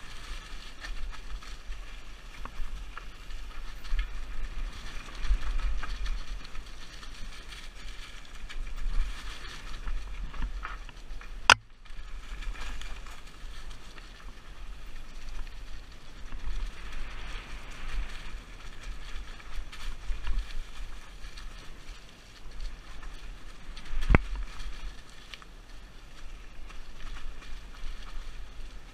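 Mountain bike riding fast down a rough, leaf-covered forest trail, heard from the onboard camera: wind rumbling on the microphone over a steady rattle of tyres and bike on the ground. There are two sharp knocks of the bike striking the trail, one about twelve seconds in and one about twenty-four seconds in.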